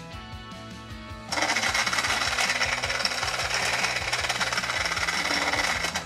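Pink toy blender switched on and running empty with a harsh buzzing whir. It starts suddenly about a second in and cuts off near the end.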